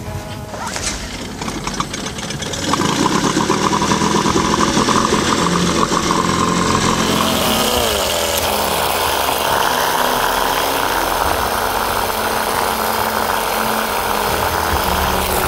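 Small boat outboard motor starting up about three seconds in and running. About eight seconds in its pitch falls, then it runs on steadily.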